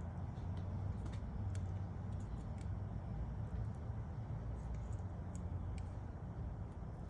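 Faint, scattered small clicks of a plastic fuel injector electrical connector and its locking cap being handled, over a steady low rumble.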